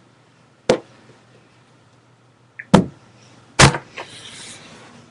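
Three sharp knocks or thumps: one about a second in, then two more close together past the middle, the last followed briefly by a soft hiss.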